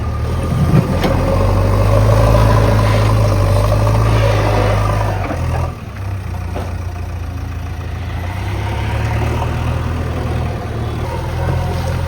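JCB 3DX backhoe loader's diesel engine running under load, louder for the first five seconds or so, then dropping back sharply about halfway through before building again. A short knock comes just under a second in.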